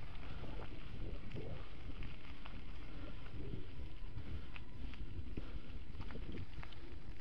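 Wind buffeting the microphone as it moves along a gravel track, a steady low rumble, with scattered small clicks and crunches of loose gravel and rattles.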